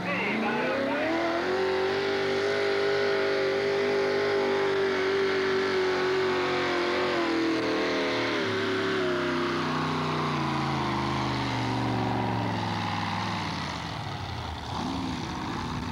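5,000 lb modified pulling tractor's engine at full throttle dragging the weight transfer sled: it revs up over the first second or so, holds high and steady, then its pitch falls steadily through the second half as the sled bogs it down, fading near the end.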